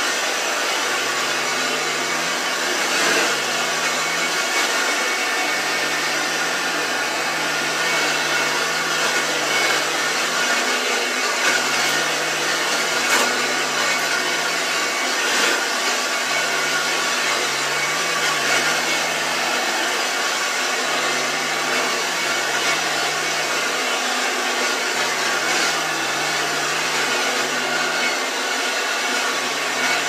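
Freshly rebuilt Hoover Junior 1334-A upright vacuum cleaner running on carpet, a steady rush of air and motor whine, rising and falling slightly as it is pushed back and forth.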